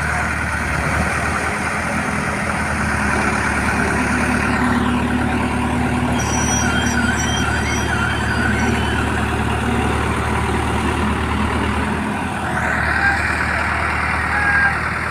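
Diesel engine of a 30-ton excavator running steadily, a low, even hum.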